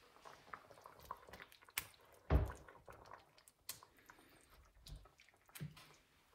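Plastic potato masher pressing boiled potatoes into a pan of hot soup: irregular wet squelches and splashes with short knocks. The loudest is a thump about two and a half seconds in.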